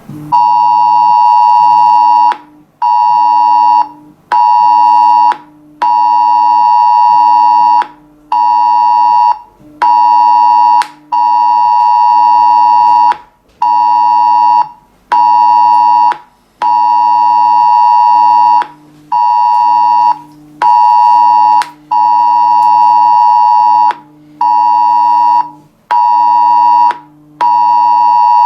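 Smartphone emergency-alert tone of a test public warning, sounding loudly: a steady, shrill tone near 1 kHz that switches on and off in irregular pulses of about half a second to two seconds.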